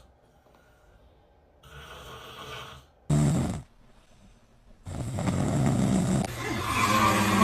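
A man snoring: a breathy snore about two seconds in, a short loud snort just after three seconds, then a longer, louder snore from about five seconds in.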